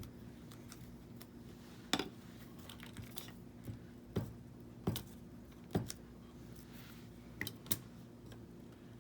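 Scattered light taps and clicks of small craft pieces being handled and set down on a work table, about six in all, over a faint steady room hum.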